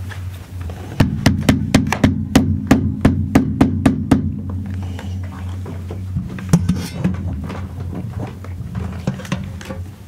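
Rapid, even knocking: about five sharp strikes a second for some three seconds, then a few scattered lighter knocks, over a low steady hum.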